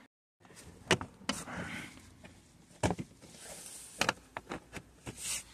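Plastic car interior trim pieces being handled and fitted: a few scattered sharp clicks and knocks with faint rustling in between, after a moment of dead silence at the start.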